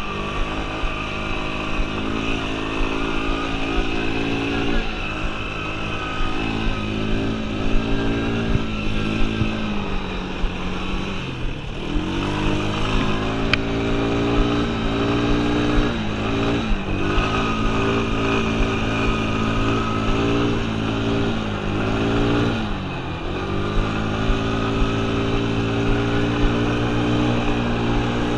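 Yamaha Breeze 125 ATV's single-cylinder engine running under throttle while the quad is ridden. Its note holds steady, then three times (about twelve, seventeen and twenty-three seconds in) the revs dip briefly as the throttle eases and climb straight back.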